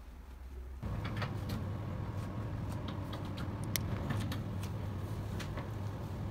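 A steady fan-like hum starts abruptly about a second in, with scattered light clicks and taps of small parts and tools being handled.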